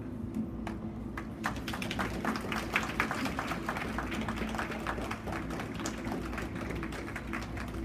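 Audience applauding: scattered hand claps start about a second in and become a dense, irregular patter of clapping.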